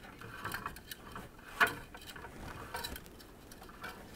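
Small plastic handling sounds as the filament is fed from the spool into the printer's guide tube: irregular light clicks and rustles, with one sharper click about one and a half seconds in.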